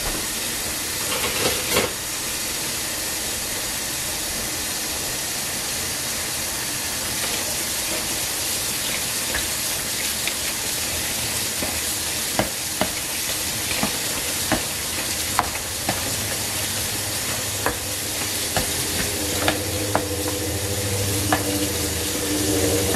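Tap water running steadily into a bowl of gold oyster mushrooms, with scattered light clicks as a wire mesh skimmer scoops through them.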